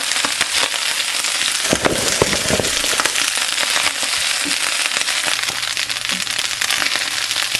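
Rice frying in hot oil in a pan with onion, shrimp, scallop and chicken liver: a steady, dense sizzle and crackle, with a few louder knocks about two seconds in.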